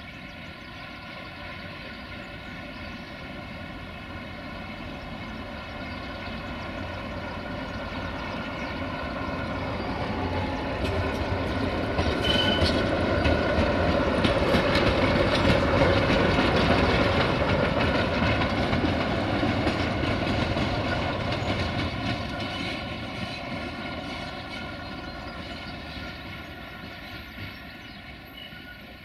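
060-DA (LDE 2100) diesel-electric locomotive with its Sulzer 12-cylinder diesel running as it passes on its own. It grows steadily louder to a peak about halfway through, then fades as it moves away.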